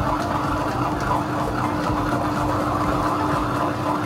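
Tabletop wet grinder running steadily, its stone rollers turning in the drum as soaked urad dal is ground into idli batter: a constant motor hum with a steady grinding rush over it.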